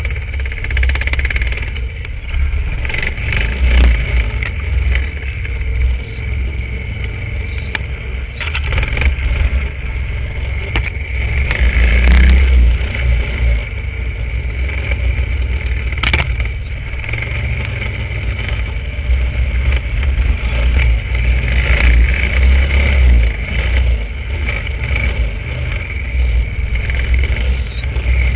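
Vintage snowmobile's two-stroke engine running as the sled travels, loud and steady with its level swelling and dropping every few seconds over a heavy low rumble. A sharp knock sounds about halfway through.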